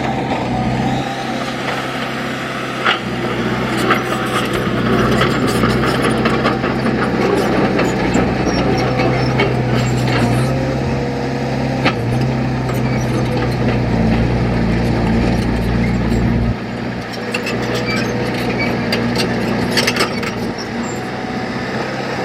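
Diesel engine of heavy earthmoving machinery running steadily under work, with scattered sharp clanks and knocks. The engine note shifts about halfway through and drops somewhat about three-quarters of the way in.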